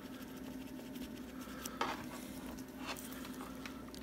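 Wet cotton swab of a silver brush-plating pen rubbing and dabbing on a small metal part, with a few soft clicks of the part being handled, the sharpest about two seconds in. A steady low hum runs underneath.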